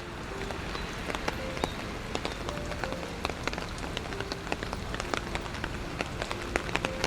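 Steady rain: a constant hiss full of scattered sharp drop ticks, with a few soft, sparse musical notes over it.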